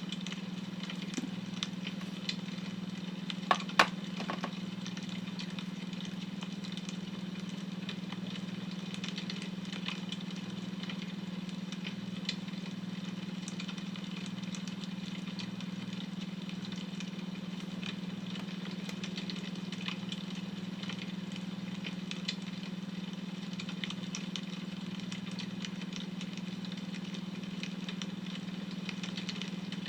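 Wood fire crackling, with scattered small pops and two louder pops about three and a half seconds in, over a steady low hum from a beta-wave tone.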